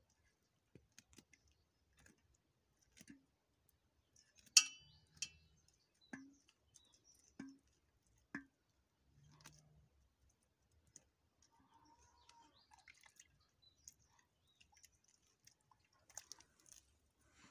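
Faint, scattered small wet clicks and pulls as feathers are plucked by hand from a scalded hen over a pot of water, with one sharper click about four and a half seconds in.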